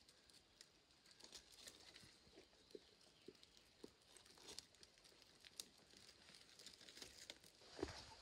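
Near silence with faint, scattered clicks and light rustling, and a louder knock near the end.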